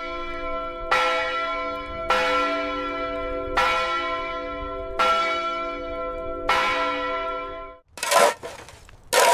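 A single large church bell tolling slowly as a mourning knell, about six strikes roughly one and a half seconds apart, each ringing on until the next. The tolling cuts off near the end and is followed by two sharp impacts of shovels striking rubble.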